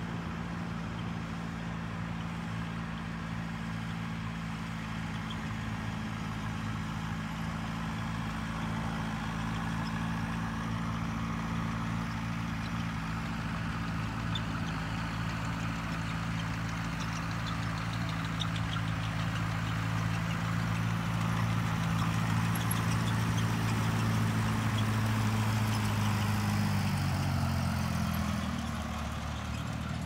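An engine running steadily at idle, its pitch shifting near the end, over a steady background hiss.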